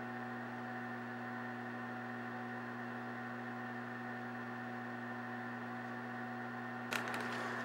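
Steady electrical hum with hiss, several fixed tones and no other activity. A sharp click about seven seconds in, after which the hiss is a little louder.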